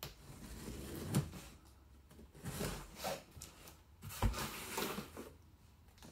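Scissor blades scraping and slicing along the packing tape of a small cardboard box, with a few knocks from the box being handled, the sharpest about a second in and about four seconds in.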